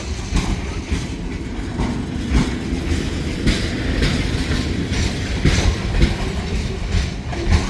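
Freight train cars rolling past. Their wheels clatter over a rough grade crossing in irregular clunks above a steady low rumble.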